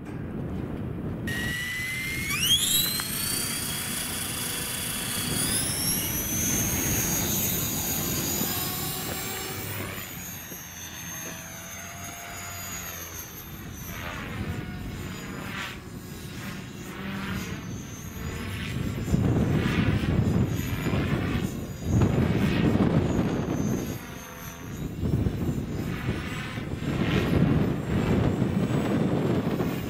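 RC model airplane's motor and propeller whine, rising in pitch as the throttle comes up for take-off and the climb, then wavering and swelling as the plane flies around. Gusts of wind buffet the microphone in the second half, and they are the loudest parts.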